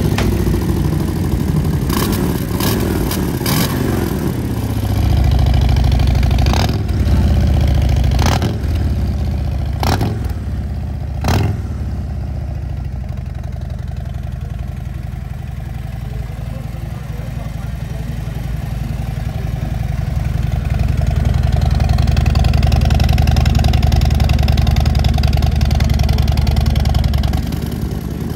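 Harley-Davidson Low Rider S V-twin running through a Jekill & Hyde flap exhaust, revved in blips with several sharp pops from the exhaust in the first dozen seconds. It then settles to a steady idle and runs louder and held steady for the last several seconds.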